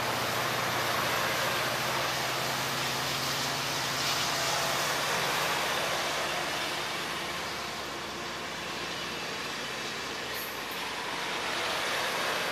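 Amtrak Pacific Surfliner bilevel passenger cars rolling past at close range: a steady rumble and hiss of steel wheels on the rails.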